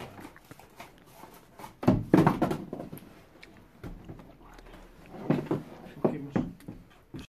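Cardboard box and packing insert being handled while a plastic multicooker is lifted out of it: irregular rustling and knocks, loudest about two seconds in, with another cluster of thumps a little before the end.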